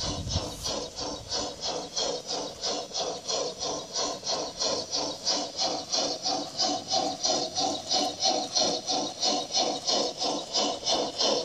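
Onboard sound system of a Bachmann Spectrum G-scale 2-6-6-2 Mallet model steam locomotive playing steady steam chuffs, about four a second, as the locomotive runs along the track.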